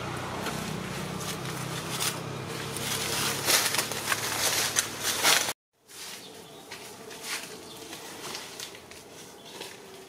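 Outdoor ambience with scattered sharp rustles and snaps over a steady low hum. Both cut off abruptly about halfway through, after which the ambience is quieter with only scattered rustles.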